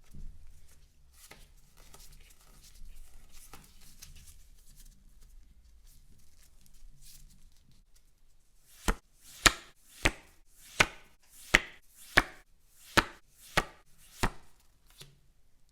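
Faint rustling of cards or packaging being handled, then nine sharp taps on a hard surface, evenly spaced a little under a second apart.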